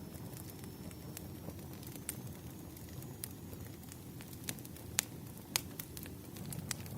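Wood fire crackling: irregular sharp pops and snaps, the two loudest about five seconds in, over a steady low rumble.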